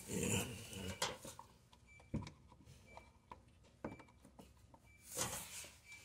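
Scattered light clicks and knocks of parts being handled and fitted by hand, with a brief muffled knock at the start and a short rustle near the end.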